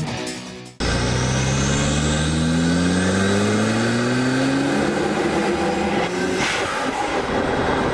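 1993 Mazda RX-7's sequential twin-turbo rotary engine accelerating through a tunnel, its pitch rising steadily for about five seconds. Then comes a short hiss, the turbo blow-off valve releasing as the throttle lifts, and the car runs on.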